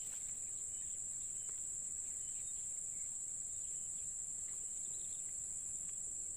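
A chorus of insects making a steady, unbroken high-pitched drone.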